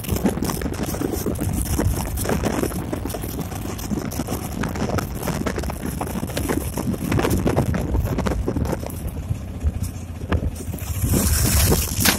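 Wind buffeting the microphone over the low rumble of a moving road vehicle; a louder hiss comes in near the end.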